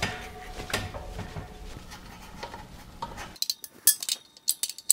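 Metal hand tools clinking against an air compressor's metal frame while the drive belt is being tensioned. A run of sharp, light clinks comes in the last second and a half, after quieter shop noise with a few soft knocks.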